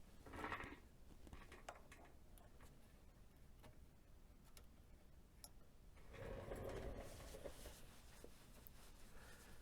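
Near silence with faint scattered clicks and two short handling noises, one about half a second in and a longer one around six to seven seconds in.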